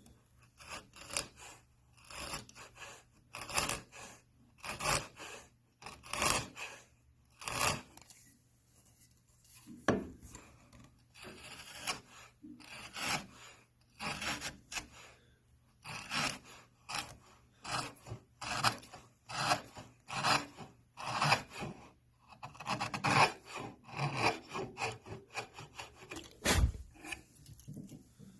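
A hand tool working wood in repeated back-and-forth strokes, a rasping, scraping sound about one to two strokes a second, uneven in pace.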